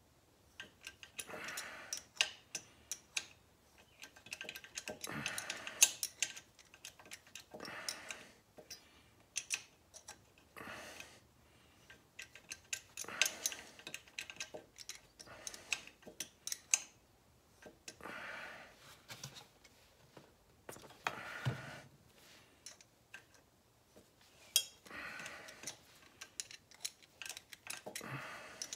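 Small ratchet wrench clicking in short runs every couple of seconds, with a light scrape, as a thread tap is turned by hand into the exhaust stud hole of a Suzuki GS1100 cylinder head, cutting threads for a thread repair insert.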